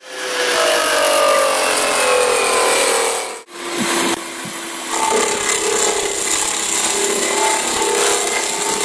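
A power tool or machine cutting material: a steady, loud, noisy whir with faint tones that slowly fall in pitch. The sound breaks off abruptly twice, at the start and about three and a half seconds in, and then resumes with steadier tones.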